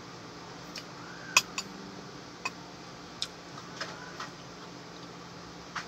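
Light, sharp clicks and clinks of a metal spoon while scooping balut out of its shell, about eight of them, the loudest about a second and a half in. A steady low hum runs underneath.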